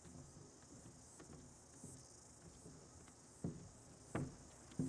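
Faint, steady high-pitched insect chirring, with three soft thumps in the second half.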